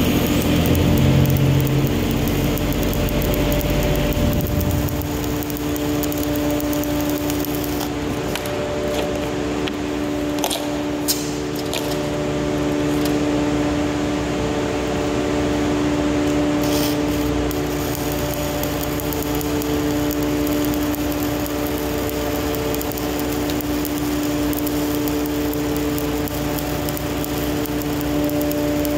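Shielded metal arc (stick) welding with a 1/8-inch 308 stainless electrode at about 127 amps, vertical up: the arc's steady crackling hiss, which stops for several seconds about a third of the way in, with a few sharp clicks, then starts again. A steady machine hum runs underneath throughout.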